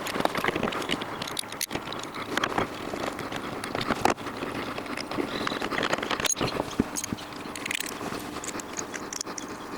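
Irregular clicks, clinks and scrapes of hand tools and metal parts as an old observatory dome wheel is unbolted and taken off.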